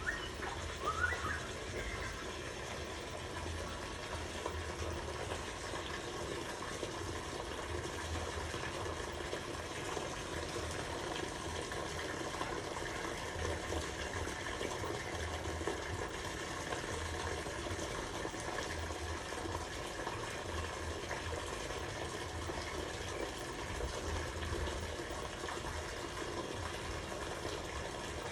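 Steady sound of running, splashing water. A small bird gives a few short rising chirps about a second in.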